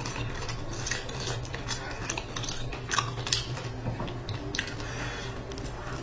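Close-up eating sounds: chewing of fried dough cake with moist mouth clicks and a few sharp crackles, the loudest about three seconds in, over a steady low hum.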